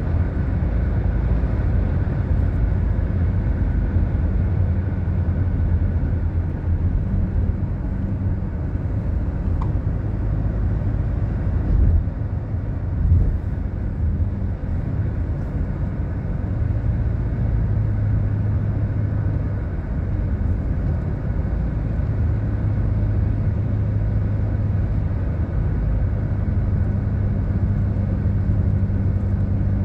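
Steady road rumble and engine hum heard from inside a moving car's cabin, with two brief thumps about twelve and thirteen seconds in.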